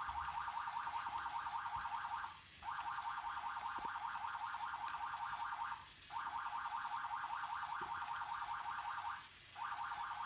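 Electronic siren from a LEGO robotics model: a fast-warbling tone played in a loop, in stretches of about three seconds with a short break between each.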